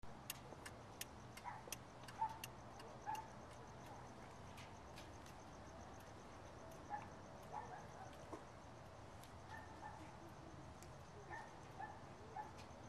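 Faint ticking: scattered sharp clicks, thickest in the first few seconds, over a steady fast high-pitched pulsing, with short chirps here and there.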